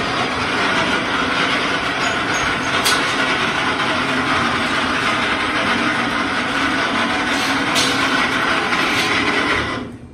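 Motor of a home-built open steel cage lift running steadily as the cage travels on its rails. It stops suddenly near the end.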